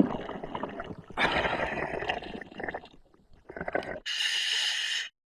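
Scuba diver breathing through a full face mask regulator underwater: gurgling exhaled bubbles for the first three seconds, then a second-long hissing inhalation about four seconds in that cuts off abruptly.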